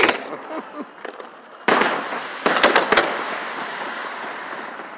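Fireworks shells bursting at close range: one sharp bang a little under two seconds in, then a quick run of about four bangs, followed by a dense crackling hiss from the sparks that slowly fades.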